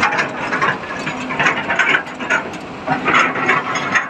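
Hyundai 210 excavator's diesel engine running, with irregular metallic clicking and rattling.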